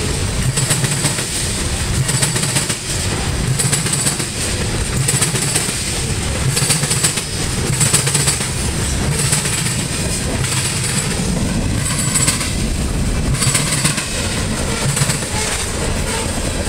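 Freight train cars (covered hoppers and a tank car) rolling past close by, their wheels clattering over a rail diamond crossing in a repeating clack.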